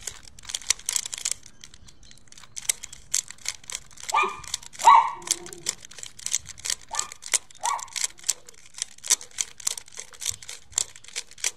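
Plastic 3x3 Rubik's cube being turned quickly during a solve: a fast, irregular run of clicking layer turns. A few short pitched sounds come in around the middle, the loudest about five seconds in.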